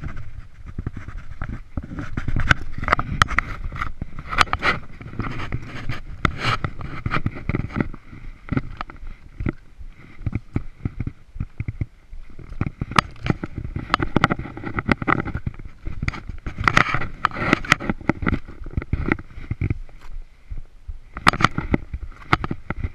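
Scuffs and scrapes of gloved hands and boots on granite while scrambling up a rock slab, with clothing rustle and a low wind rumble. The scuffing comes in irregular clusters, with a couple of short lulls.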